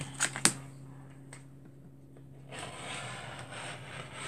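Handling sounds while working quilt fabric: two sharp clicks near the start and a fainter one a second later, then a rustling scrape lasting just over a second. A low steady hum underneath stops about halfway through.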